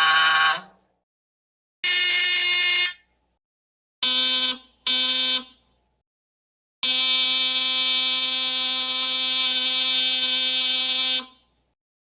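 A series of steady, single-pitched horn blasts, each at a different pitch with silence between. A blast dies away just after the start, a one-second blast comes about two seconds in, then two short honks, then one long blast of about four seconds.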